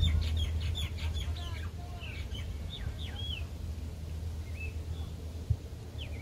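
Birds chirping: a quick run of short, high calls over the first three seconds or so, then a few scattered calls, over a steady low rumble. A single sharp knock about five and a half seconds in.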